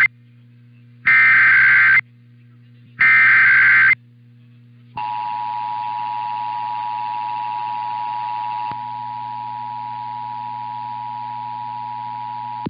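Emergency Alert System required monthly test broadcast: the tail of one SAME header data burst, then two more, each about a second long with a second's pause between. After a short pause comes the EAS two-tone attention signal (853 and 960 Hz), held steady for about eight seconds and dipping slightly in level partway through, all over a low hum.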